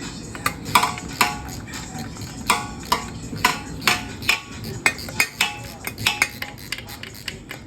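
Metal hand tools and motorcycle parts clinking and knocking irregularly, about two sharp strikes a second, each ringing briefly.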